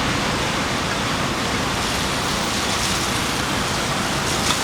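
Heavy rain and running floodwater: a steady, even rush of noise.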